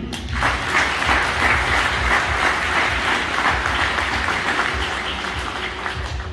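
Audience applauding, a dense clapping that starts about half a second in and tapers off near the end.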